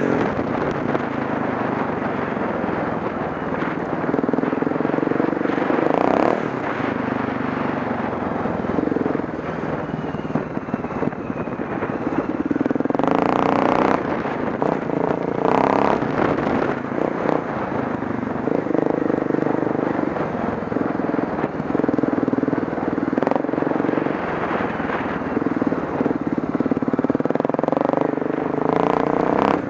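Off-road motorcycle engine running and revving up and down again and again as the bike rides a rough gravel track, with scattered knocks and rattles throughout.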